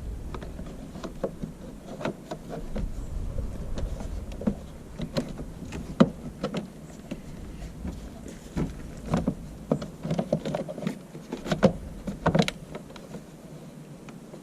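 Plastic cover around a car battery being handled and fitted back into place: irregular clicks and knocks of plastic, with the sharpest knocks about six and twelve seconds in.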